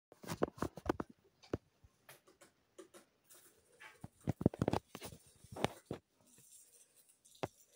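ASMR handling sounds played through a TV speaker: a run of sharp taps and clicks as a cardboard gift box is opened, with a soft crinkling rustle of foil-wrapped chocolate bars near the end.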